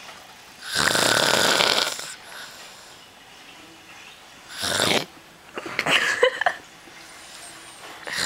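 A drunk, passed-out man snoring very loudly: a long snore about a second in, a shorter one near the middle, and another starting at the end, roughly four seconds apart.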